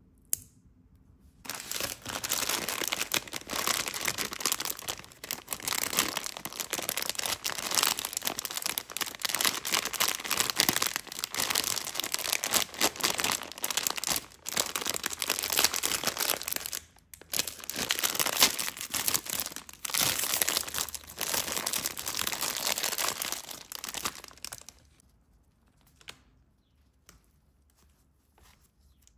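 Plastic snack wrapper of a packaged croissant crinkling and tearing as hands handle it and pull it open. The crinkling starts about a second and a half in, runs with a few short breaks, and stops a few seconds before the end.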